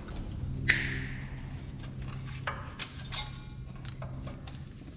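A sharp metallic ping that rings briefly about a second in, then a few lighter clicks, over a steady low hum.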